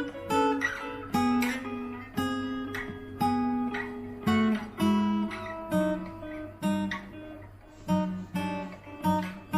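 Acoustic guitar played in a steady run of picked notes and short chords, a new note or chord about every half second, each left to ring.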